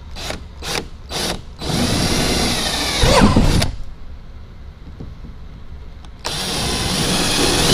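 Power drill with a 3/8-inch bit drilling holes for well nuts through a kayak hull. It starts with a few short trigger pulses, then runs for about two seconds, stops, and starts a second hole a few seconds later.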